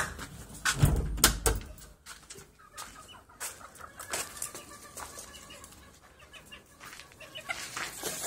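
Loud knocks and rubbing from the phone being handled in the first couple of seconds. After that, chickens clucking in short repeated calls.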